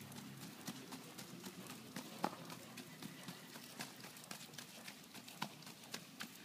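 Hoofbeats of a young filly being ridden on dirt-and-grass ground: a quick, steady run of light strikes, several a second, with one louder strike a little over two seconds in.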